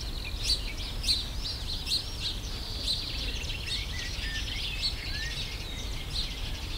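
Garden background sound picked up by a Boya BY-M1 lavalier microphone: small birds chirping and twittering, several quick high chirps each second, over a steady low rumble.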